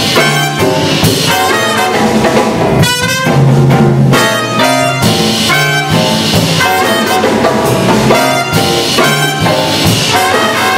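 Live jazz orchestra playing: saxophones and brass, tuba included, in short repeated ensemble chords over double bass and percussion.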